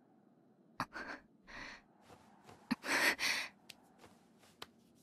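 A person's soft breaths and gasps: a few short breathy sounds, the longest two about three seconds in, with faint clicks between them.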